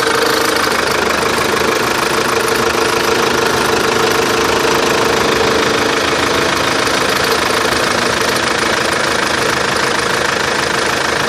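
Opel Antara engine running steadily, with a steady whining tone among the engine noise. This is the extraneous noise that the owner regards as abnormal.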